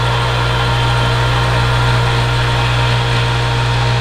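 Ceiling-mounted electric winch running steadily with a low hum as it pays out cable and lowers its hook.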